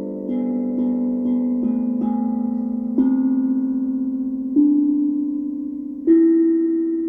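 Steel tongue drum played one note at a time, each tongue struck and left ringing. A quick run of several notes comes first, then slower single notes about every one and a half seconds.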